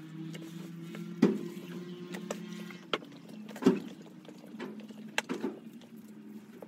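A kitchen knife chopping on a cutting board: a few sharp knocks, the two loudest about a second in and just under four seconds in, with lighter taps between. A steady low hum runs underneath.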